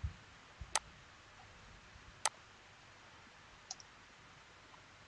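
Three sharp computer mouse clicks, about a second and a half apart, the second the loudest.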